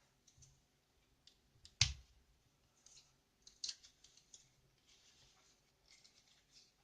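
Faint, scattered plastic clicks and scrapes of an LED bulb's housing being worked open by hand, with one louder sharp click about two seconds in.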